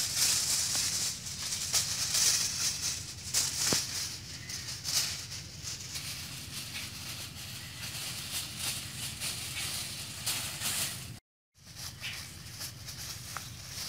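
Aluminium foil crinkling as a sheet is torn off the roll and then folded and creased by hand. The crackle is densest early on, gets lighter, and the sound cuts out for a moment near the end.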